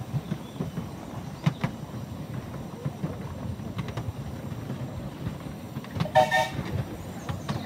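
Miniature steam train running, with a low rumble and scattered sharp clicks from the wheels on the rails. About six seconds in, the locomotive gives a short whistle of about half a second.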